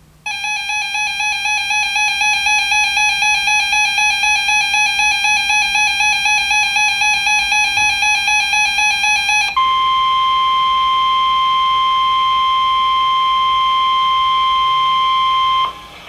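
Weather alert radios sounding a severe thunderstorm warning alert: first a rapidly pulsing, warbling alarm for about nine seconds, then the steady 1050 Hz NOAA Weather Radio warning alarm tone for about six seconds, which cuts off abruptly.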